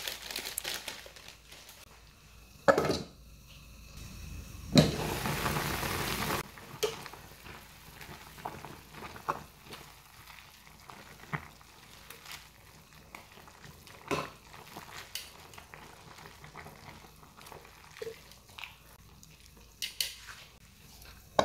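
Kitchen tongs clicking and knocking against a pot as instant noodles are stirred and pulled apart in boiling water, over a low steady bubbling. About five seconds in, a sharp knock is followed by a second and a half of louder hissing.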